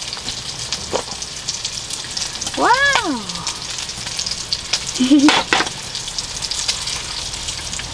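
Meat sizzling and spitting on a hot grill plate: a steady hiss full of fine crackles. A couple of sharp metal clicks come as an aluminium mess tin of cooked rice is opened.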